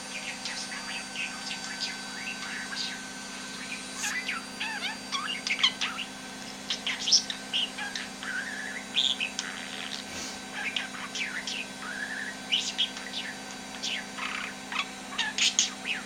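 Budgerigar warbling and chattering: a steady stream of short chirps and twittering notes with no clear words.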